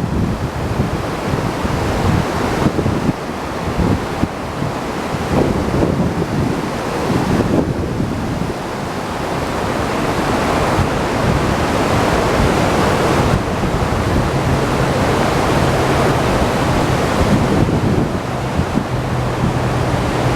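Steady rush of Niagara Falls' falling water, with wind buffeting the microphone.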